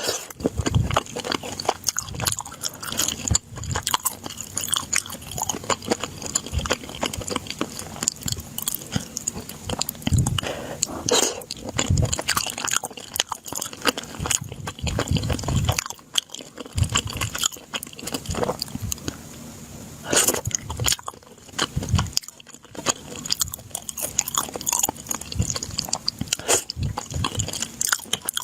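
Close-miked eating: repeated biting and chewing with crunchy, crackling mouth sounds, irregular and continuous.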